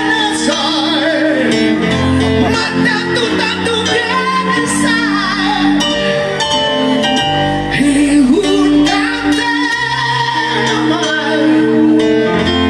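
A man singing an Italian-style ballad into a microphone, holding long notes with vibrato over instrumental accompaniment.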